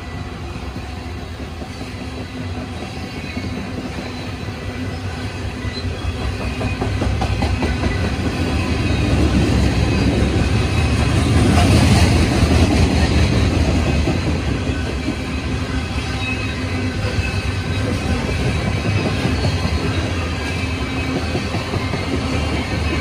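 Coal freight train's cars rolling past with a continuous rumble of wheels on rails, growing louder about halfway through and then easing off.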